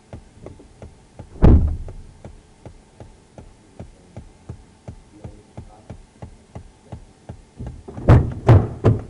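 Knocks and thumps in the back seat of a police car: one heavy thump about a second and a half in, then three more in quick succession near the end, over faint rapid ticking.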